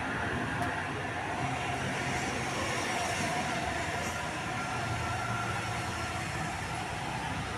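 Large bus engine running amid steady traffic noise, a low rumble that swells twice, with faint steady tones higher up.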